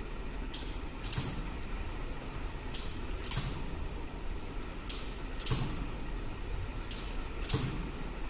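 Laser pistol being fired repeatedly at electronic targets. There are four pairs of sharp mechanical clicks, about two seconds apart. The second click of each pair is louder and followed by a brief high ring.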